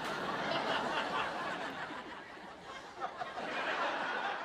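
Sitcom laugh track: a studio audience laughing together, swelling again about three seconds in.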